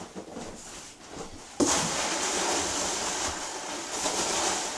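Hands rummaging in a large cardboard shipping box. Soft rustles at first, then about a second and a half in a loud, continuous rustling and scraping of packing material and cardboard starts.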